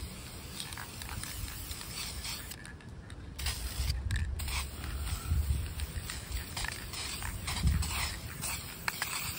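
Aerosol spray-paint can hissing as a second coat of black paint is sprayed onto expanded-metal mesh screens, with two short breaks in the spray about three and four seconds in. Occasional low rumbles under the hiss.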